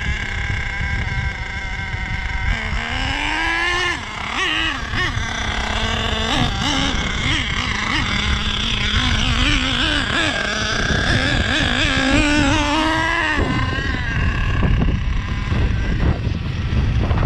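Nitro engine of a Savage X46 RC truck revving up and down as it drives, its pitch climbing several times and falling away about 13 seconds in.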